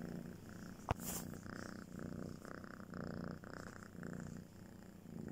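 Domestic cat purring close to the microphone, a low rumble rising and falling in regular swells. A single sharp click about a second in.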